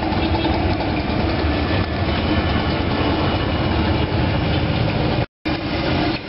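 Deep-fat frying in a large wok: hot oil bubbling and sizzling over a steady low rumble. The sound cuts out for a split second about five seconds in.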